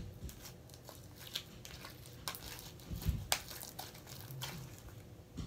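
Sticky, over-activated slime being squeezed, kneaded and pulled off the hands, making soft squelches and scattered small crackling clicks, with a few sharper snaps.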